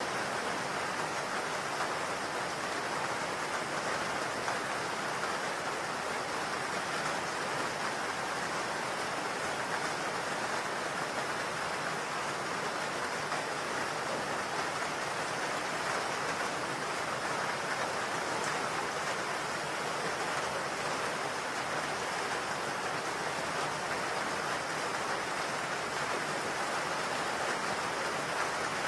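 Steady rain-like noise, an even hiss that holds the same level throughout: the masking sound track of a subliminal recording.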